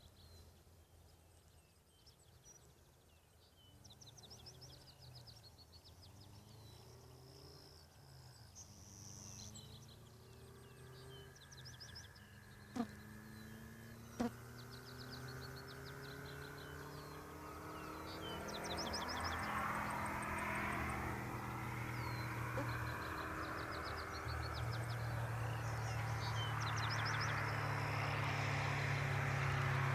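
A car engine heard from a distance, its pitch rising and falling as it drives. It grows steadily louder over the second half as it comes closer. Repeated high chirping calls sound throughout, with two sharp clicks near the middle.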